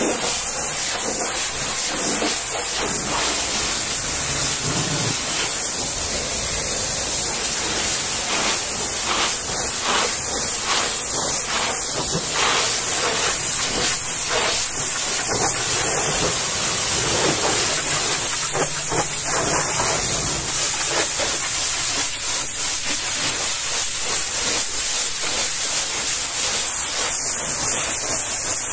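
High-pressure washer jet spraying water onto a truck's cab panels and then its front tyre and wheel: a continuous hiss whose tone shifts as the jet sweeps across the surfaces.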